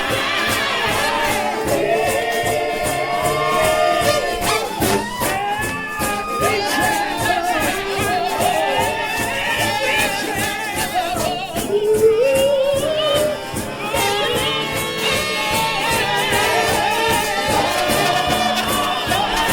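Gospel shout band music: a loud trombone-led ensemble playing a sliding, voice-like melody over a fast, driving drumbeat.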